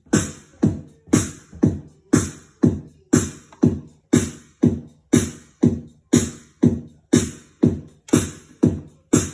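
Electronic keyboard's built-in drum rhythm playing a steady electronic beat loop: a strong hit about twice a second with a lighter hit between.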